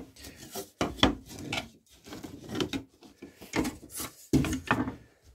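A hand file rasping on a 3D-printed plastic throat plate in repeated strokes, about two a second, filing down a height difference where two printed pieces join.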